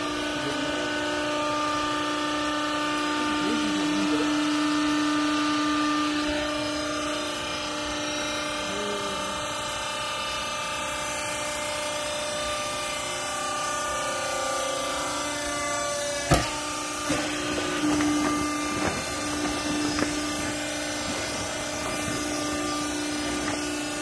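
Hydraulic power unit of a Y82 vertical clothing baler running: the electric motor and pump give a steady hum with a higher whine while the press works. A sharp knock comes about 16 seconds in, followed by a few lighter knocks.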